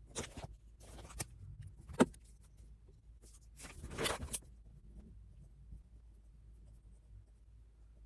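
Handling noises: a few short rustles, with one sharp click about two seconds in, over a faint low room hum.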